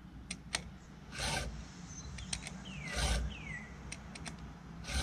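STIHL 2-in-1 file guide stroked along a chainsaw chain. Its round file sharpens a cutter tooth while its flat file dresses the depth gauge. Three rasping file strokes, under two seconds apart, with light clicks in between.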